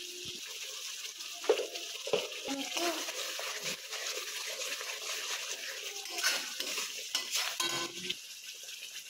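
Spatula stirring food frying in a pan: a steady sizzle, broken by scrapes and knocks of the spatula against the pan.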